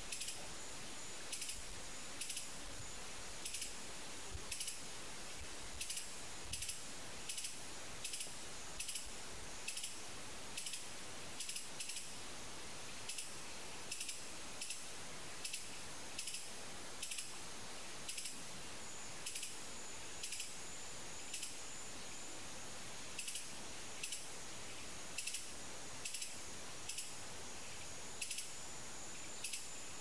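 Repeated short, high-pitched chirps, often in pairs, about once or twice a second. Under them is a faint steady high whine and a constant hiss.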